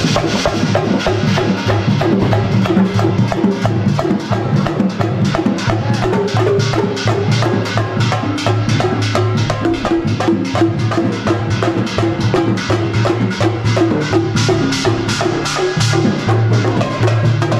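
Music with a fast, steady percussion beat over a repeating low bass line.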